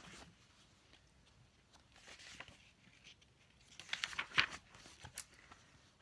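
Picture book page being turned by hand: a few short paper rustles and crinkles, the loudest about four seconds in.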